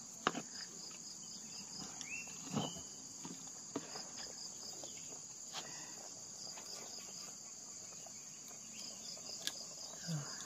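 Steady high chorus of insects with a repeating pulsed chirp, over a few scattered crackles and pops from a wood fire.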